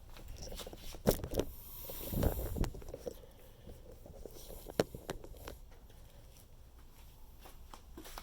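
Cardboard packaging being handled and pulled off a boxed air compressor: scattered knocks and rustling, with a heavier thump a couple of seconds in and a sharp knock near the middle.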